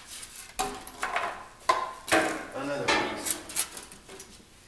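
Rigid styrofoam form pieces rubbing and squeaking against each other as they are pulled apart and set down on a workbench, with several sharp knocks, the loudest about two seconds in.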